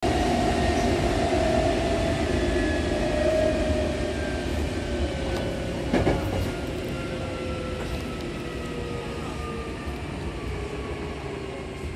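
Hankyu commuter train heard from inside the carriage, slowing down: the motor whine falls steadily in pitch over a low rumble of the wheels on the track. A single short knock comes about six seconds in.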